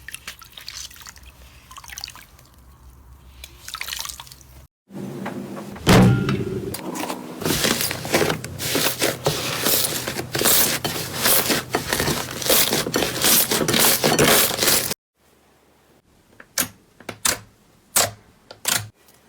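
Slime being squished and pressed in hand: wet, sticky crackling and popping, sparse and quiet at first, then dense and loud from about five seconds in, ending on a few separate sharp pops near the end.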